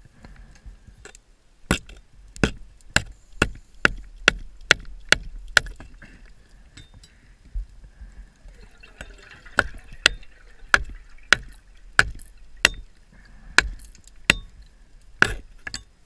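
Hard knocks on the sunken ship's metal structure, heard underwater: a quick run of about two a second, a short pause, then a second, slightly slower run, as the diver works to force a door open.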